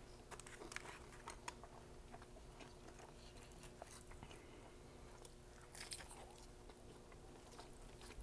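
Close mouth sounds of eating McDonald's food: scattered soft clicks of chewing, then a bite about six seconds in, with crunching and chewing after it.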